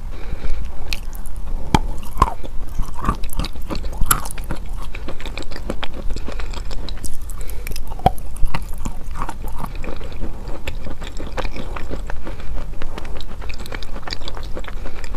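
Wet chalk being bitten and chewed right at a clip-on lavalier microphone: dense, irregular crunching and crackling.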